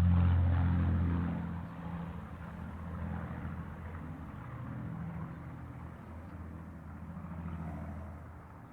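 Airplane passing overhead and moving away: the engine hum fades over the first second or two, then a low, steady rumble goes on as it recedes.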